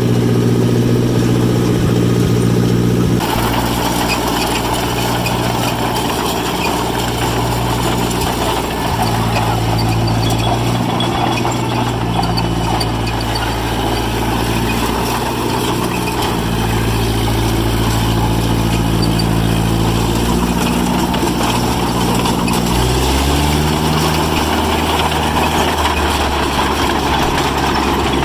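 John Deere 1010 crawler's engine running steadily as the machine moves. About 23 seconds in, the engine pitch rises as it is revved up.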